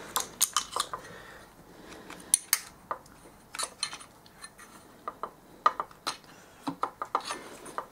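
Light, irregular metallic clicks and clinks as a BMW F650GS clutch basket and its splined washer are shifted and nudged with fingers and a thin metal tool to line them up on the splines.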